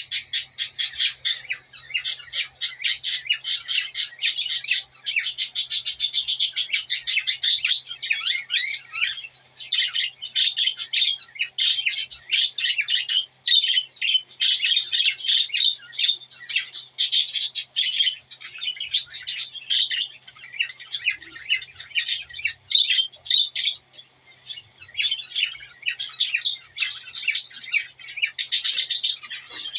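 Male cockatiel singing a courtship song to a female: a long, busy run of rapid chirps and whistles.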